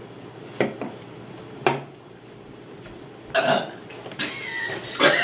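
Forced burps in a string: a few short ones in the first two seconds, then longer, louder ones, the loudest near the end.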